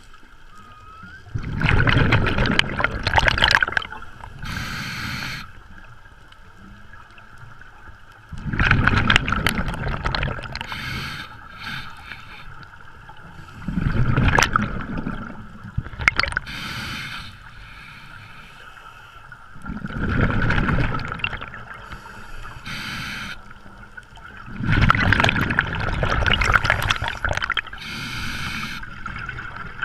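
Scuba diver breathing through a regulator underwater: five long exhalations, each a loud rush of bubbles, coming about every five to six seconds, each followed by a short hiss as the next breath is drawn.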